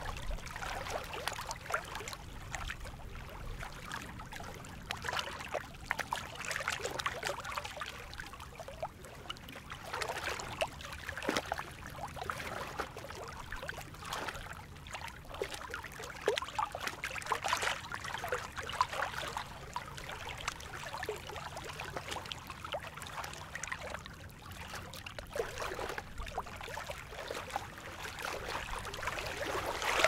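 Small waves lapping against the rocks of a lakeshore embankment: irregular little splashes and trickles that come and go throughout.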